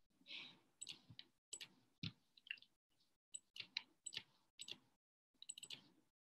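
Faint, irregular clicks and taps, typical of a computer mouse and keyboard being worked, picked up by a video-call microphone that drops to dead silence between them.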